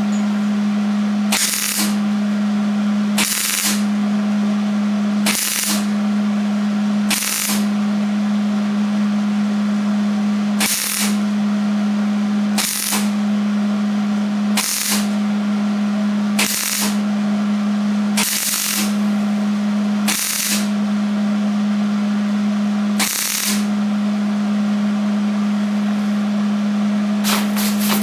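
Welding on the sheet-metal front fender of a 1958 Chevy Apache, filling the emblem and antenna holes: a steady buzz broken by a brief sharp crackle every one to two seconds.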